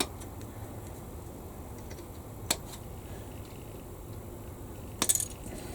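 A few sharp, isolated clicks and taps from small plastic model-kit parts and tools being handled on a workbench, over a low steady background hum.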